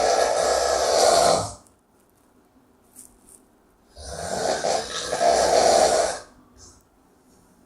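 A person snoring loudly with a rough, fluttering rasp. One snore ends about a second and a half in, and a second snore follows a few seconds later and lasts about two seconds.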